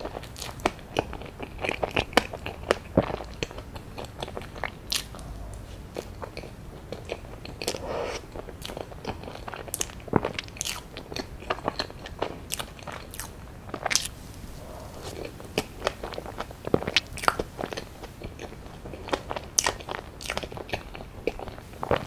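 Close-miked eating sounds: biting and chewing a strawberry cream sandwich of soft bread, cream and fresh strawberry halves, with many sharp, wet mouth clicks and smacks scattered throughout.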